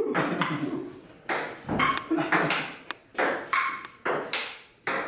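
Table tennis rally: the ball clicking off paddles and the table about twice a second, several hits leaving a brief ringing tone.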